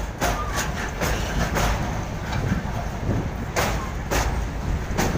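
Freight train wagons rolling past at close range on a steel rail bridge: a steady low rumble with repeated, unevenly spaced clacks of the wheels over the rails.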